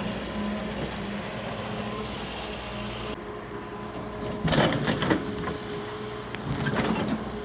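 Large excavator's engine running steadily, with two louder, rough bursts of noise partway through and near the end as the machine works.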